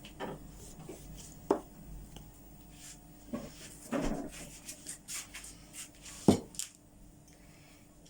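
Kitchen handling sounds: scattered, irregular knocks and light clatter of dishes and utensils on a wooden surface, with two sharper knocks, one about a second and a half in and a louder one a little past six seconds.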